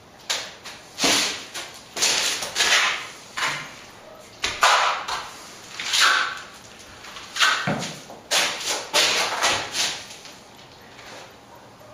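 Steel plastering trowel spreading a white set coat of finishing plaster onto a wall: a series of irregular scraping strokes, each about half a second to a second long.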